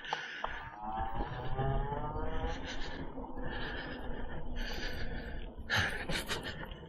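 Power Goat 60V e-bike's electric motor whining, rising slowly in pitch as the bike picks up speed under power, over a steady ride rumble and recurring bursts of hiss.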